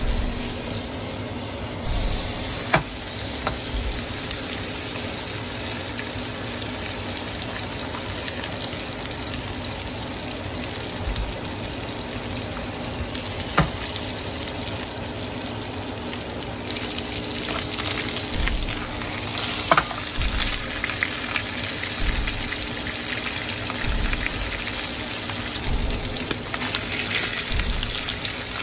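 Butter and a porterhouse steak sizzling in a frying pan, a steady spattering fry. From about halfway on the sizzling gets louder and busier, with a few sharp clicks along the way.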